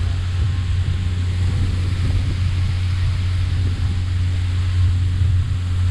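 Steady low drone of a fishing boat's engine, under the even hiss of water sprayers showering the sea beside the hull.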